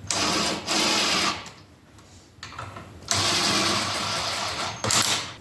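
Cordless power driver running bolts in, in four bursts, the longest about three seconds in, fastening a crank-holding tool to the engine.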